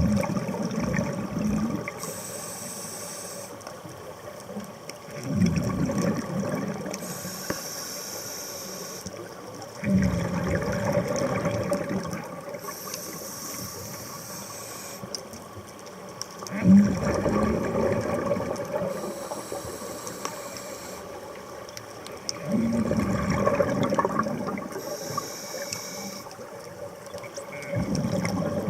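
Scuba diver breathing through a regulator underwater. A high hiss on each inhalation alternates with a louder low rumble of exhaled bubbles, about every five to six seconds, six exhalations in all.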